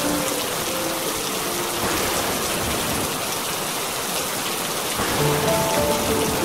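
Steady rain. Soft music plays over it, a few held melodic notes in the first two seconds and again from about five seconds in.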